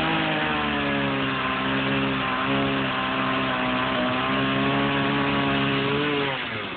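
Chainsaw running at high revs while cutting into a trunk, its pitch sagging slightly under the load, then dropping back to idle about six seconds in.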